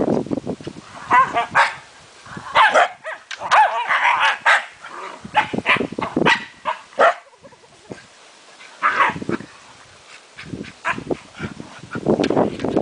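Several Scottish terriers yipping and barking in short, irregular bursts while they play and jump up, with a lull about two-thirds of the way through.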